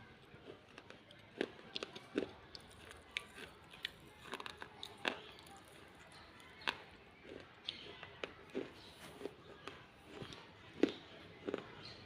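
Someone biting and chewing pieces of baked clay pot, with irregular sharp crunches and crackles.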